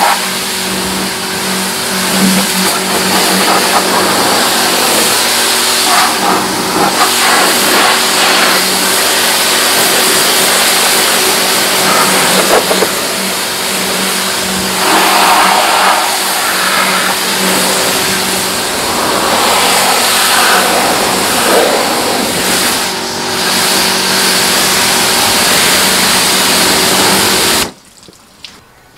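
Pressure washer running, a steady motor hum under the loud hiss of the water jet spraying onto a car's bumper and bodywork. It cuts off abruptly near the end.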